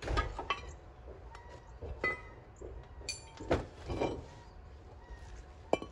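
A handful of scattered metal knocks and clinks as a 2010 Chevrolet Malibu's cast-iron brake rotor is worked off its wheel hub, a couple of them ringing briefly.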